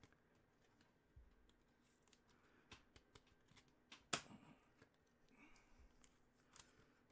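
Near silence with faint rustling and clicking of trading cards and plastic card sleeves being handled, and one sharper click about four seconds in.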